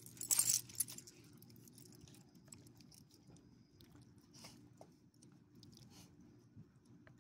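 Small dog chewing and licking a piece of chicken nugget from fingers, with faint wet clicks. A brief loud rustle comes about half a second in.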